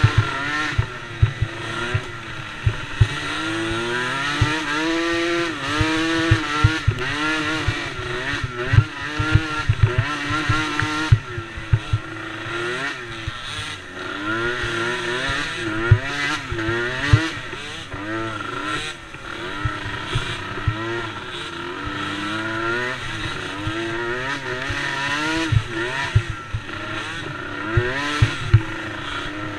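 Small youth racing ATV engines, a DRR DRX90 among them, revving up and down repeatedly as they accelerate and back off around the track, with several engines overlapping. Frequent short low thumps run through it.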